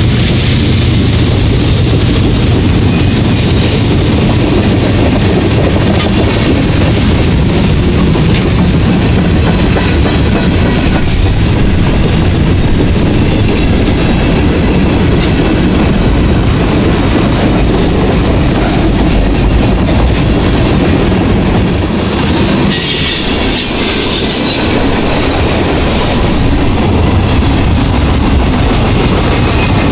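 Freight cars of a passing manifest train rolling by close at hand: steady wheel-on-rail noise, heaviest in the low end. About 23 seconds in, a high-pitched wheel squeal joins it.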